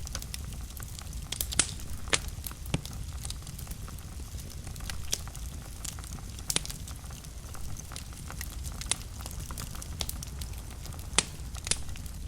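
Wood fire burning in a fireplace: a steady low rumble of the flames with irregular sharp crackles and pops, the loudest about a second and a half in and near the end.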